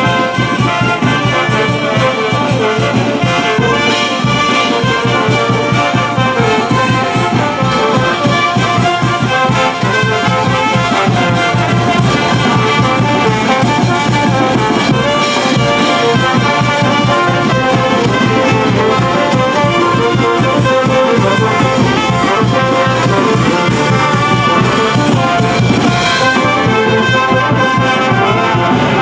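Brass band playing: trumpets, trombones, saxophones and sousaphones over a steady beat from bass drum and snare.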